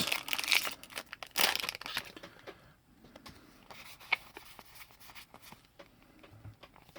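Foil booster pack wrapper crinkling and tearing as it is opened, loudest in the first two seconds or so, then faint scattered rustles and ticks of handling.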